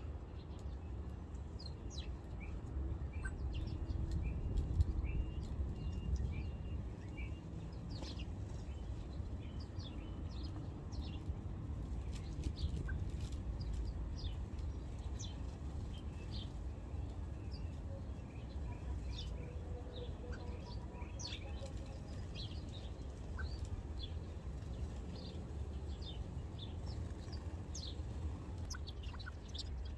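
A flock of small garden birds chirping in many short, scattered calls as they feed, over a steady low rumble.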